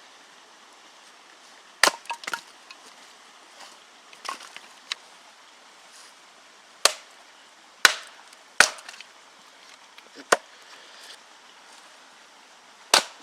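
Dry wood from the old camp bed frames being broken up for firewood: about ten sharp wooden cracks and knocks at irregular intervals, the loudest near the middle.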